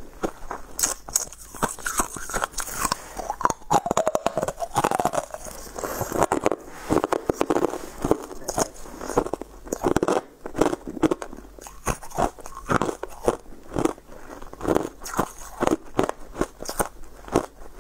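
Teeth biting and crunching through hard frozen pieces of dark-coloured ice, a rapid run of sharp cracks and crunches that keeps going with the chewing.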